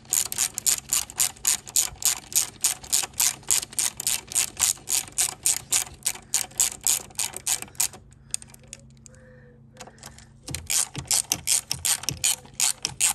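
Hand ratchet with a socket clicking steadily at about four clicks a second as it undoes a bolt holding a plastic coolant header tank. It stops for about two seconds, then clicks again on the second bolt.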